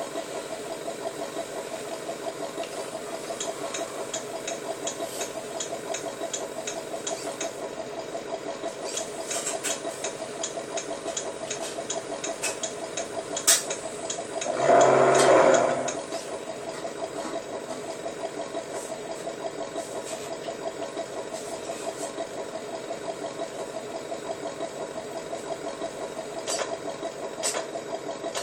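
Steady, fast-pulsing engine idle sound, with a sharp click about thirteen seconds in followed by a louder burst lasting about a second and a half, like a brief rev, before it settles back to idle.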